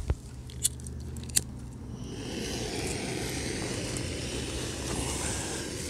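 Remote-canister camping gas stove being turned on and lit: three sharp clicks, then a steady hiss of the gas burner starting about two seconds in.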